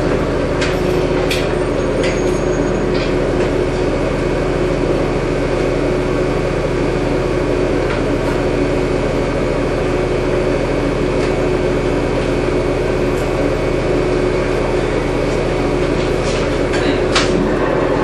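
Cabin sound of an Orion VII diesel-electric hybrid transit bus: a steady drone from the drivetrain with several held low tones, and a few light clicks and rattles from the interior.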